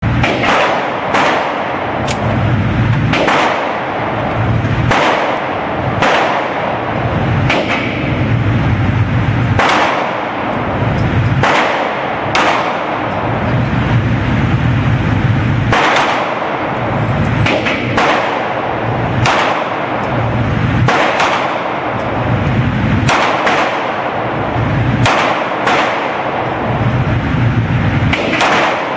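A Browning Nighthawk 9mm semi-automatic pistol, a Browning Hi-Power variant, fired as a long string of single shots about one to two seconds apart. Each crack is followed by a short echo off the walls of the indoor range.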